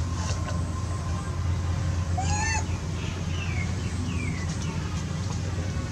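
A young long-tailed macaque gives one brief arched squeal about two seconds in, over a steady low hum. Two short falling chirps follow.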